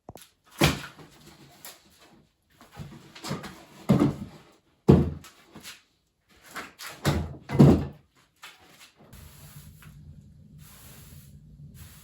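A run of irregular knocks and thuds, about a dozen in the first eight seconds, typical of wooden boards and tools being handled and set down. A faint steady low hum follows from about nine seconds in.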